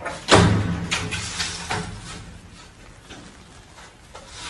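A cat knocking against a sliding window's glass and frame, the pane rattling: one loud bang about a third of a second in, then a few lighter knocks that die away.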